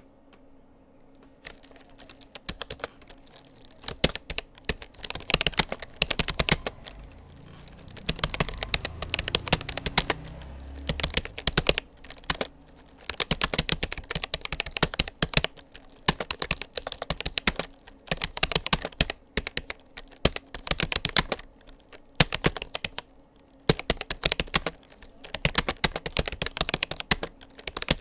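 Rapoo computer keyboard being typed on: rapid keystroke clicks in bursts, broken by short pauses.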